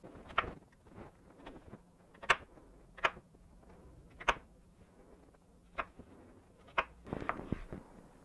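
Kitchen knife dicing an onion on a cutting board: sharp, irregular knocks of the blade against the board, a second or so apart, with a quicker run of them near the end.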